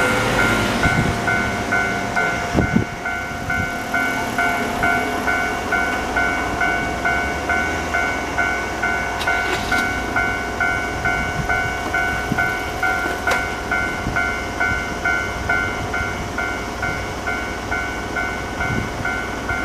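Electronic railway level-crossing warning bell in the old JR standard tone, ringing steadily about twice a second, over the rumble of a train passing.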